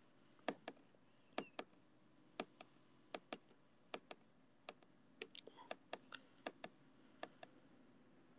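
Fingertips tapping on a smartphone's touchscreen: light, irregular clicks close to the microphone, often in pairs, about three a second, over near silence.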